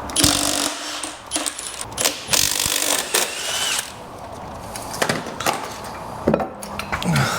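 A power tool running in two short bursts, the second about a second and a half long, followed by scattered metal knocks and clanks.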